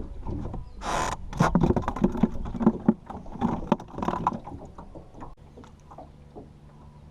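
Knocks and scrapes in a small boat: a short rush of noise about a second in, then a few seconds of clattering knocks that die down, followed by a faint steady low hum.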